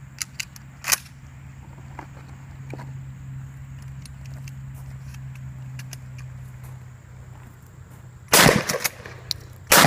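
Mossberg 500 Persuader 12-gauge pump-action shotgun firing twice near the end, the shots about a second and a half apart, each with a short echo. A few sharp clicks in the first second come before the shots.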